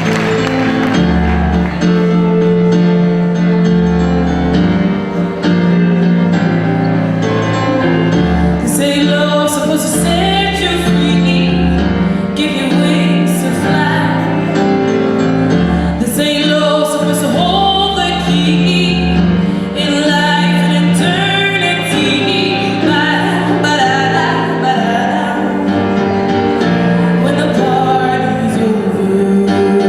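A song performed live: an instrumental introduction of held chords over a pulsing bass, then a solo singing voice comes in about nine seconds in and carries the melody over the accompaniment.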